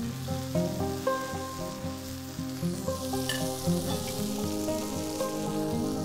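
Sausages sizzling as they fry on a hot flat griddle: a steady fine hiss. Background music with held notes plays over it.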